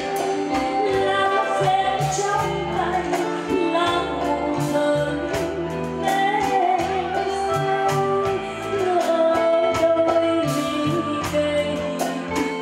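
A woman singing a Vietnamese song live into a microphone, with sustained, wavering notes, over band accompaniment with a bass line and light cymbal ticks.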